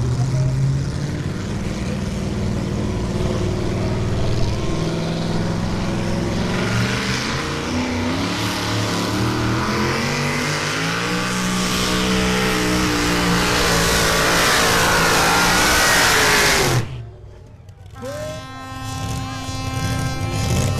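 Pulling tractor's engine running flat out under load, its pitch climbing steadily over many seconds as it pulls the sled, then cutting off abruptly. A quieter steady tone follows near the end.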